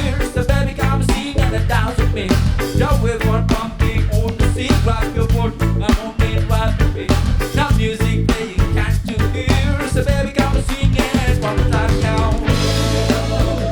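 Live band playing an upbeat ska-reggae groove on drum kit, bass, guitar and keyboard, with no singing heard, near the end a cymbal wash.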